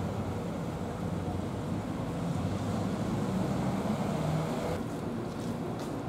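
A steady low mechanical rumble with a faint hum. Its higher hiss drops away about five seconds in, and a few faint clicks follow.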